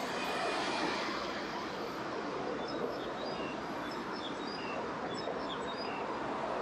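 Steady roar of city road traffic, with a small bird chirping a run of short, high notes in the middle.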